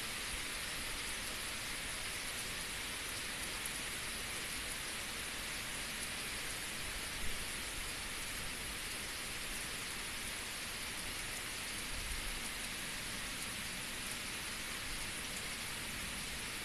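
Heavy rain falling steadily on a wet asphalt road, an even rush of drops with no let-up. One brief tap stands out about seven seconds in.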